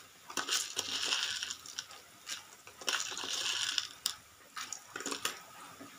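Coriander seeds, cumin and black peppercorns roasting in a little coconut oil in a metal kadai, being moved about the pan. There are two scraping, rattling bursts of about a second each and scattered sharp clicks against the metal.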